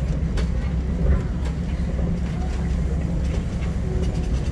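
Open-air safari truck driving over a rough dirt track: a steady low engine and road rumble with a couple of sharp rattling clicks.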